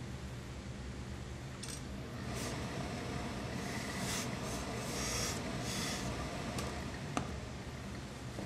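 Hose-fed tailor's steam iron pressing suit cloth: the iron rubbing over the wool, with several short hisses of steam in the middle, over a steady low hum. A single sharp click near the end.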